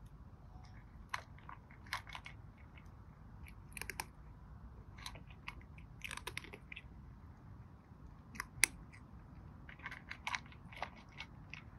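A cat eating dry kibble from a bowl: irregular crisp crunches as it chews, coming in small clusters with short pauses between.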